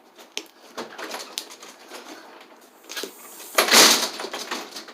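Slime being squeezed and stretched by hand, with small sticky clicks and crackles, then a louder crackling burst lasting about half a second, roughly three and a half seconds in, as an air bubble in the slime breaks.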